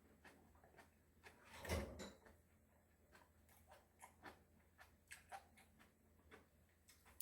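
Faint close-mic eating sounds: small mouth clicks from chewing every half second or so, with one louder, longer sound about two seconds in.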